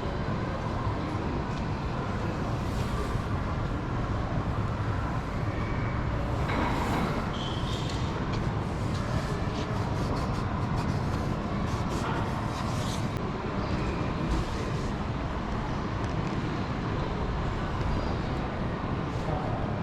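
A car running on the road with a steady rumble of engine and tyre noise. A few light clicks and rattles come through between about six and thirteen seconds in.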